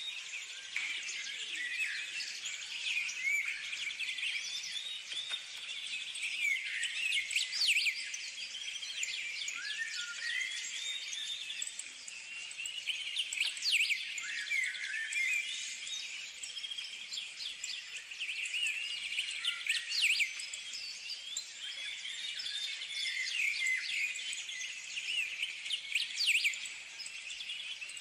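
Many birds chirping and whistling at once: a steady chorus of short, overlapping calls and quick pitch glides, denser in a few places.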